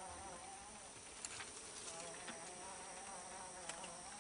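Faint drone of a flying insect, its buzz wavering up and down in pitch, with a few faint ticks.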